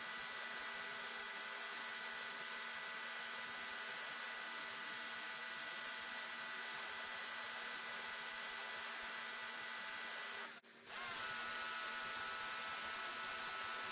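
Portland electric pressure washer running: a steady motor whine over the hiss of the water spray. The sound cuts out for a moment about ten and a half seconds in, then comes straight back.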